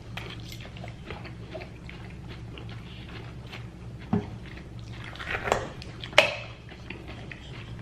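Close-up chewing and crunching of salad and lettuce, wet and crisp, with a few sharp clicks, the loudest about six seconds in. A low steady hum runs underneath.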